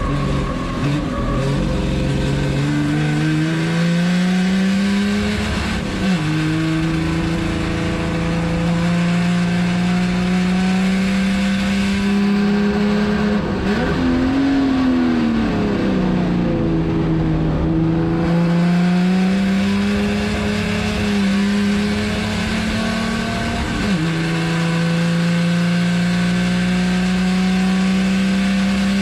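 Chevrolet Opala 250 race car's straight-six engine under hard acceleration, heard from inside the cabin. Its pitch climbs steadily and drops sharply at an upshift about six seconds in. Near the middle the pitch falls off and comes back, and it drops again at a second upshift near the end.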